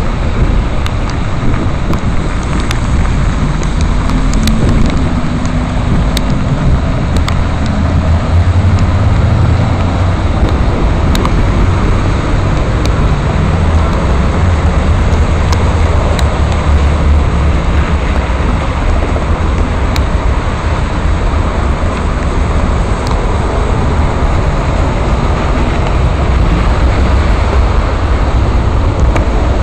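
Loud steady street noise on a rainy day: a low rumble with an even hiss over it and a few faint clicks.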